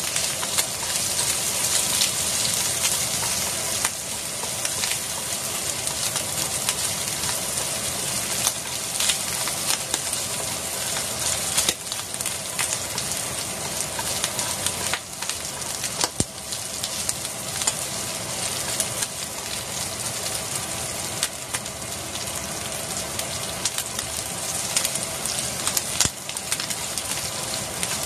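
Asparagus and bacon sizzling steadily in oil in a frying pan, with scattered light clicks and scrapes of wooden utensils stirring against the pan.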